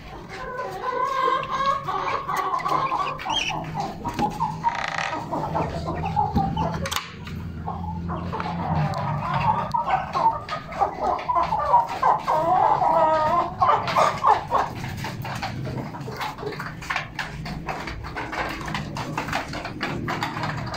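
A flock of chickens clucking and calling, busiest around the middle, with scattered short clicks and knocks.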